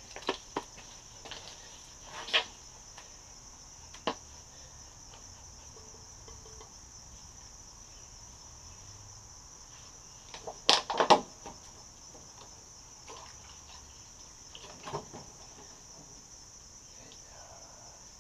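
A steady, high insect chorus of crickets, with a few scattered sharp knocks and clatters; the loudest cluster of knocks comes about eleven seconds in.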